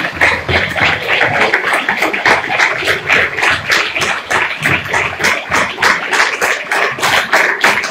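Many people clapping together in a steady rhythm, a few claps a second, as rhythmic applause for the performers.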